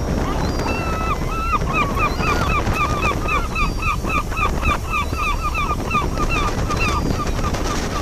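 Gulls calling, a rapid series of short down-slurred calls at about four a second that starts about a second in and stops near the end, over a steady rush of wind and water.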